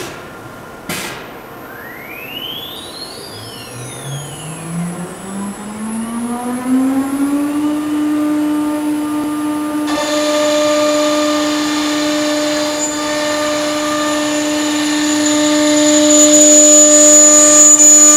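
Automatic-tool-change CNC router spindle: two sharp clicks, then the spindle spins up with a rising whine that levels off at a steady pitch. About ten seconds in, the bit starts cutting into the wooden panel, adding a hissing cutting noise that grows louder near the end.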